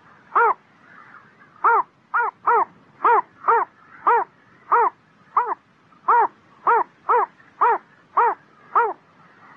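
Green-backed heron calling: a run of about fifteen short, sharp calls, each rising then falling in pitch, repeated at uneven intervals of roughly half a second.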